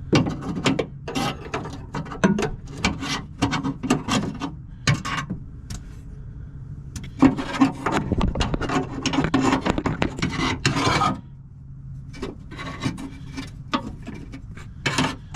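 A car door's handle and linkage rod being worked into place inside the door: repeated clicks, knocks and scraping of metal parts against the door, with a longer run of scraping about halfway through.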